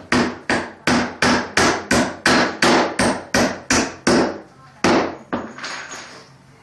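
Hammer driving a nail into wood: about a dozen quick, even blows at roughly three a second, then a short pause and two or three more strikes, the last ones fainter.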